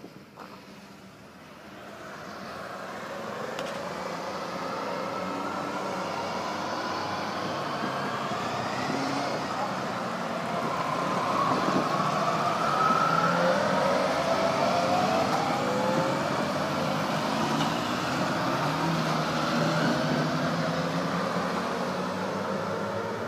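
A group of motorcycles riding past one after another, their engines rising and falling in pitch as each goes by. The sound builds over the first few seconds and is loudest about halfway through.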